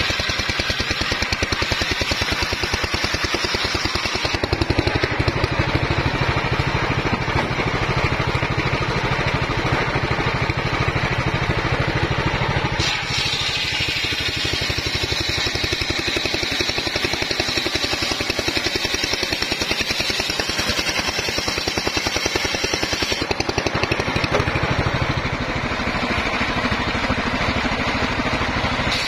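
Homemade engine-driven circular saw running steadily, a low engine hum under a high whine, with the sound shifting abruptly about 4, 13 and 23 seconds in.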